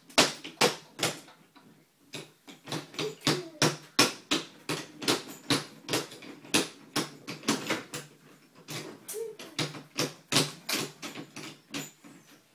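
Wooden toy trains knocking and clacking against each other and the wooden track on a play table. It is a rapid, irregular run of sharp clicks, several a second, with a short pause about a second and a half in.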